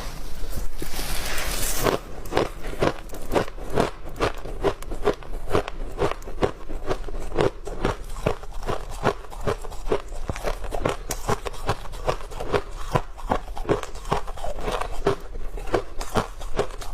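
Freezer frost being bitten and chewed: a dense crackling crunch for the first two seconds, then a steady run of sharp crunching chews, about three a second.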